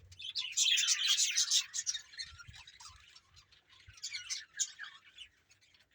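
A large flock of budgerigars chattering and chirping together, many birds at once, loudest in the first two seconds with another burst near the end.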